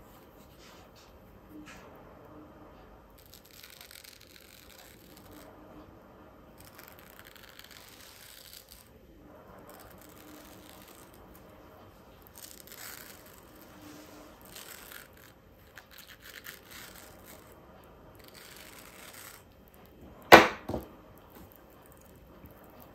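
Serrated knife scoring the flesh of a ripe mango half, a run of quiet scraping strokes about a second each. About 20 seconds in, a sharp clack with a smaller one just after, as the knife is set down on the table.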